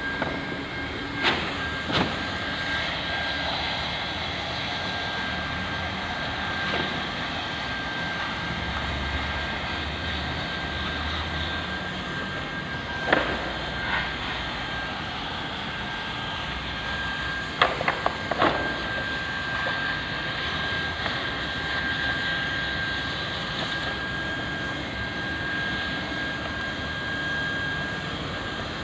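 Handheld hot-air plastic welder running steadily, a rushing blower noise with a thin high whine, as its nozzle heat-welds a seam in dam liner sheeting. A few sharp clicks break through, several close together about two-thirds of the way in.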